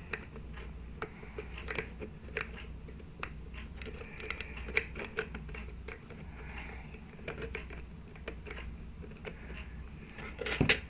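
Small irregular clicks and scrapes of fingers working a flat ribbon cable's plastic connector on the GPIO header pins of a single-board computer in a metal case, with one louder knock near the end.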